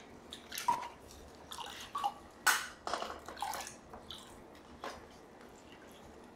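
Clay-covered hands splashing and rinsing in a bucket of muddy water: a run of irregular small splashes and drips that stops about five seconds in.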